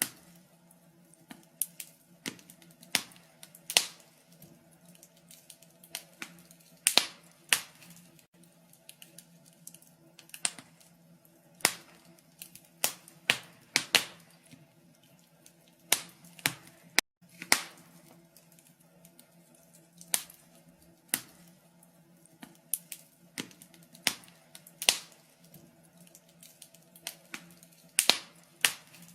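Wood fire crackling: irregular sharp pops and snaps of burning logs, some much louder than others, over a faint steady low hum.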